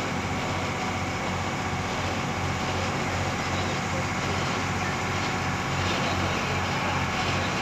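Motorboat engine running steadily under way, a low even drone, over the rushing of water along the hull.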